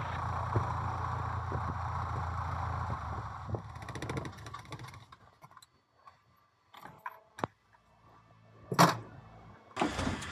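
Small Cessna's piston engine running steadily at idle, then stopping about five seconds in as it is shut down. Scattered light clicks follow in the quiet cabin, with a brief louder rustle near the end.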